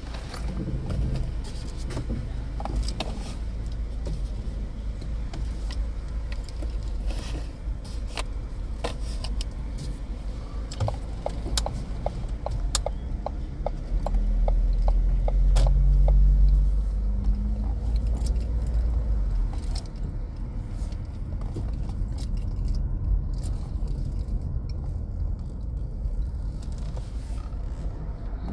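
Car engine and road rumble heard inside the cabin as the car moves off, growing louder for a few seconds past the middle. Scattered light clicks and rattles sound over it, with a short run of even ticks, about three a second, a little before the middle.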